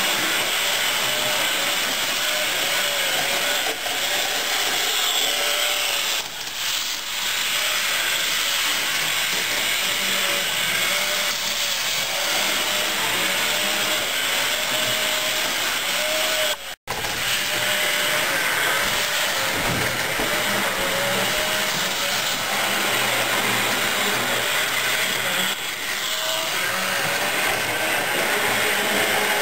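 HO-scale model train running on its track: a steady whirring rush of the small motor and wheels, with a faint wavering whine. It breaks off for an instant once, partway through.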